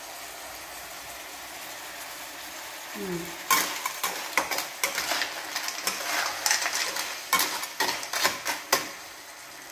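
Cockles and onion sizzling steadily in a frying pan. From about three and a half seconds in, a metal spatula stirs them, scraping the pan and clattering the shells in quick irregular strokes until near the end.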